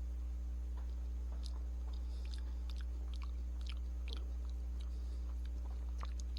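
A person chewing a bite of crumb-coated ice cream: scattered small mouth clicks and crunches over a steady low electrical hum.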